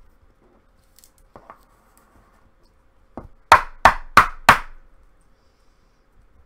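Four sharp taps about a third of a second apart, a hard plastic card holder knocked against the desk, after a few faint plastic handling clicks.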